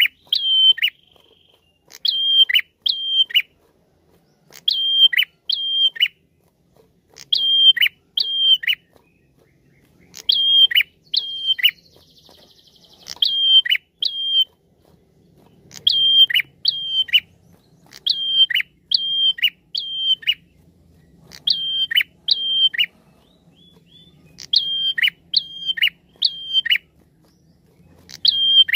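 Caged prenjak calling: sharp, high notes that each drop in pitch, given in quick groups of two to four with short pauses between groups, and a brief buzzy rattle about halfway through. This is the prenjak lure call (suara pikat) that bird-keepers use to attract other prenjak.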